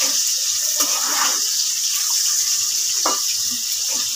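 Potato pieces frying in hot oil in a pan, a steady sizzle while being stirred with a spatula.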